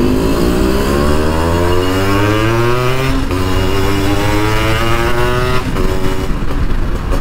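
Yamaha RX100's 98cc single-cylinder two-stroke engine, breathing through an aftermarket expansion-chamber exhaust, pulling under acceleration on the road. The note climbs steadily for about three seconds, breaks briefly and climbs again, then drops to a lower note about five and a half seconds in.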